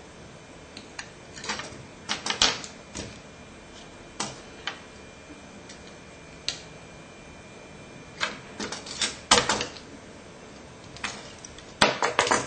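Pliers clicking and snapping as components are pulled off a disposable camera's flash circuit board: irregular sharp clicks, some single, some in quick clusters.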